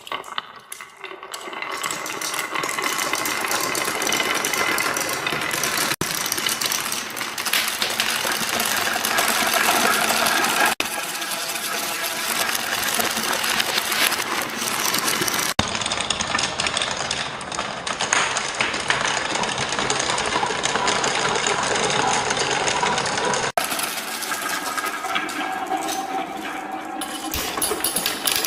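Many marbles rolling and clattering down a marble run track in a dense, continuous rattle, with abrupt changes as the footage cuts between shots several times.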